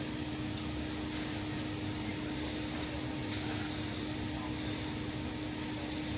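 Steady mechanical hum with a constant low tone, over an even background of street noise.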